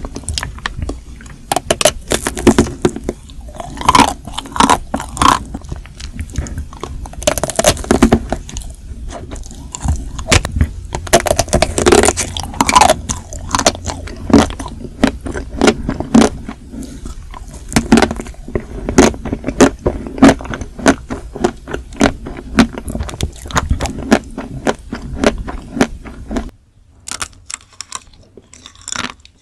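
Close-miked biting and chewing of chocolate-coated Magnum Mini ice cream bars: the hard chocolate shell cracks and crunches in dense, sharp crackles. A little before the end it drops much quieter, with only scattered soft clicks of a chocolate ice cream being bitten.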